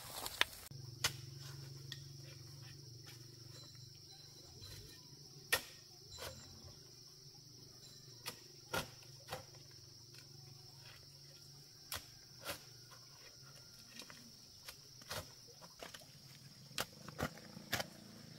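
Insects chirring steadily at a high pitch, with a low steady hum that starts about a second in and scattered sharp knocks and taps.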